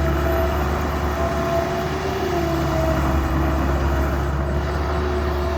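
2003 Bobcat T190 skid steer's diesel engine running steadily, a deep drone with a steady whine above it that dips slightly in pitch about two seconds in.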